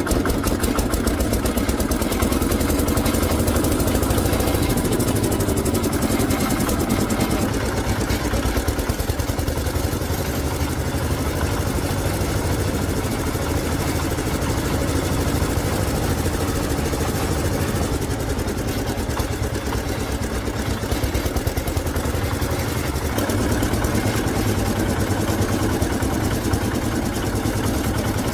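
Small engine running steadily at idle-to-medium speed with a fast, even rattle, typical of a repaired rice threshing machine being test-run.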